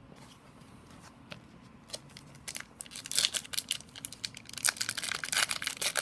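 Foil wrapper of an Upper Deck hockey card pack crinkling and tearing as it is ripped open by hand. The crackling starts about halfway in and grows louder, after a few faint clicks of cards being handled.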